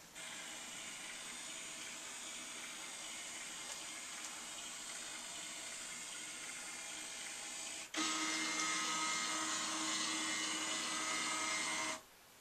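Kodak all-in-one printer's flatbed scanner running a preview scan: the scan-head motor whirs steadily for about eight seconds, then runs louder with a clearer whine for about four seconds and stops suddenly.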